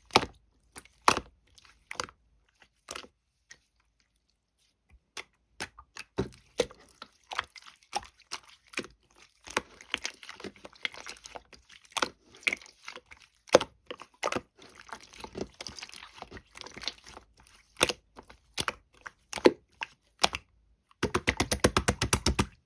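Crisp green apple being bitten and chewed close to the microphone: separate sharp crunches with short pauses between them. Near the end comes a fast, even run of sharp taps, about a dozen a second.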